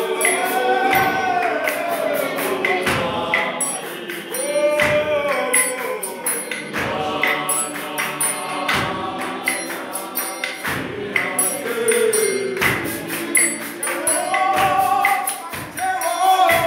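Mixed-voice gospel choir singing in harmony over a steady beat of jingling percussion.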